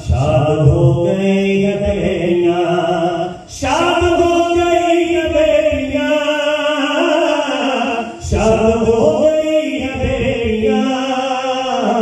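A man singing an Urdu/Punjabi naat unaccompanied through a microphone and PA, in three long phrases of drawn-out, wavering notes with short breaks between them.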